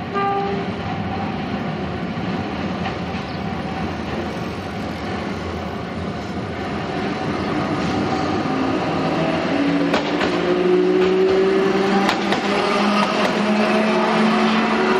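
Hankai Tramway Type 161 tram approaching and passing, its nose-suspended (tsurikake) traction motors giving a gear whine that rises in pitch as it gathers speed and gets louder as it nears. A few clacks come from the wheels over rail joints, and a short tone sounds at the very start.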